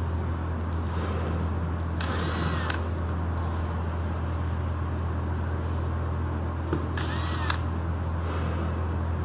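Cordless drill-driver run twice in short bursts of under a second, its motor whine rising and falling in pitch as it backs out the screws holding an LED display module. A steady low hum runs underneath.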